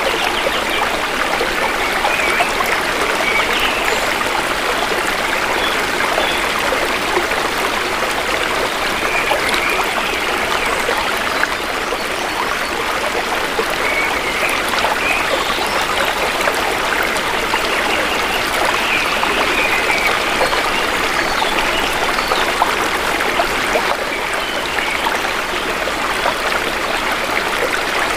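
Shallow river water flowing steadily, a continuous trickling and babbling stream.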